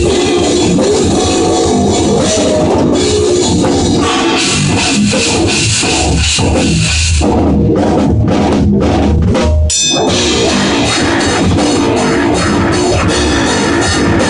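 Rock band playing loud: drum kit and electric bass guitar. About seven seconds in the cymbals drop out for a few separate accented hits, and the full band comes back in with a sharp hit just before ten seconds.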